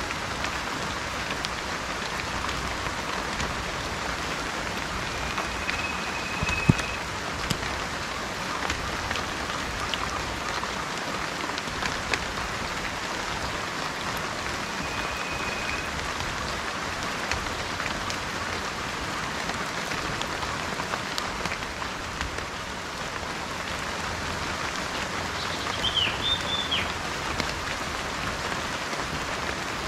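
Steady rain falling, with a bird whistling a couple of held notes and giving a short chirp near the end. There is a single sharp tap about seven seconds in.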